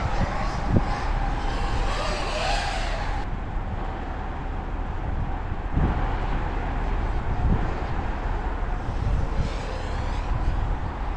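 FPV cinelifter drone's XNova 2808 motors and propellers droning, the pitch wavering up and down in the first few seconds as the throttle changes, over a steady low rumble.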